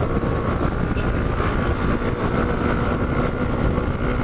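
Yamaha Ténéré 250's single-cylinder four-stroke engine running steadily at cruising speed, with wind and road noise on a bike-mounted camera microphone. The pitch holds level throughout, and the bike is fitted with a switchable two-way exhaust.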